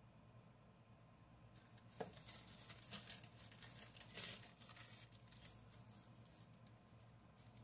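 A sheet of parchment paper crinkling and rustling as it is handled and smoothed flat, with a few sharp crackles before it settles to a faint rustle.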